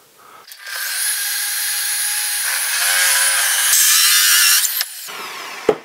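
A 51 mm hole saw in a Bosch drill on a drill stand cutting into melamine-faced particleboard, starting about half a second in as a steady grinding cut with a high whine. The cut gets louder near the end. Then the drill stops and its whine falls away. The cut is only part-depth from this face, so the melamine on the far side does not chip out.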